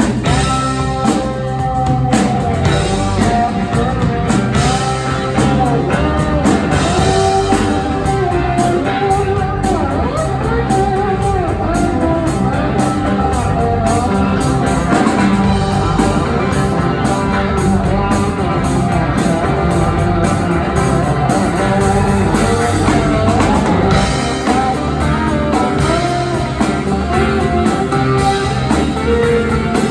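Live rock band playing an instrumental break: an electric guitar solo with bending notes over bass and drum kit.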